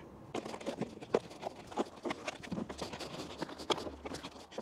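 Irregular light clicks and taps with some rustling as a hand presses a braided cable down into the gap of a plastic trim piece.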